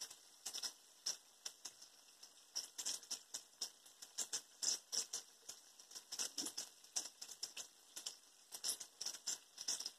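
Batter-coated bacon frying in a pan of hot vegetable oil: a quiet, irregular crackling and popping, several small pops a second.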